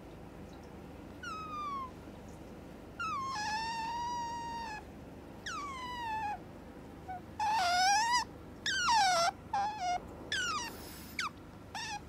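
Asian small-clawed otter calling with a string of high-pitched squeaks, about nine, most sliding down in pitch and one held longer, coming faster toward the end. It is the otter's wake-up call to its owner, which does not stop even when it is pushed.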